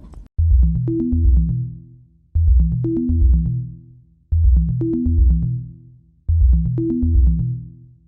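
Background electronic music: a low synth bass phrase with a drum-machine beat, repeating about every two seconds, each phrase fading out before the next starts.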